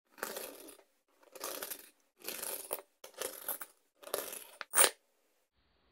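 1 oz silver bullion coins being set down on edge on a cloth one at a time by a gloved hand: five short scraping rustles about a second apart, then a brief, sharper, louder sound near the end.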